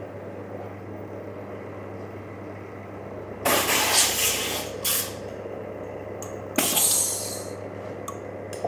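Air-fed paint spray gun triggered in short bursts: a burst of about a second some three and a half seconds in, a brief one just after, and another of under a second about two seconds later, over a steady low hum.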